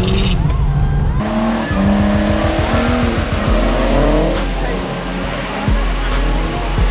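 Nissan S15 Silvia drifting on a wet skid pan: the engine revs up and down while the tyres skid and hiss across standing water. Several short low knocks come near the end.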